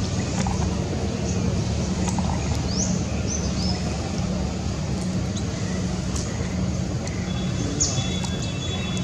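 Steady low outdoor rumble with a few short, high rising chirps, a cluster about three seconds in and one more near the end.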